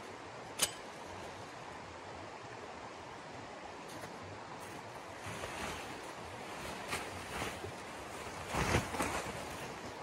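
Heavy canvas tent fabric rustling and flapping as it is lifted, shaken and spread out, loudest near the end, over a steady rushing outdoor noise. A single sharp click about half a second in.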